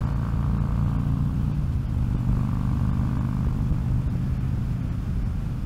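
Harley-Davidson Road King's V-twin engine running steadily at cruising speed, a low drone.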